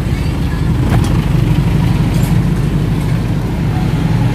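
Steady low rumble of street traffic, with a short click about a second in.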